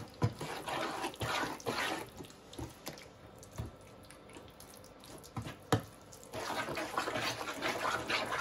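Wooden spoon stirring mashed raspberries in a plastic tub: wet squelching and scraping, with a few sharp knocks of the spoon against the tub.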